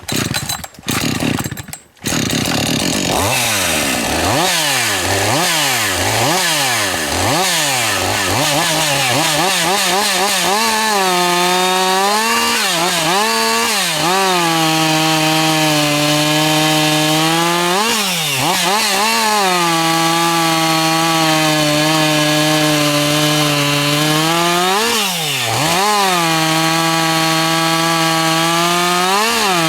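Two-stroke chainsaw catching after a few sputters, then revved in quick up-and-down blips. It then runs under load through a log at a steady, lower pitch, with the pitch jumping up briefly several times as the chain comes free between cuts.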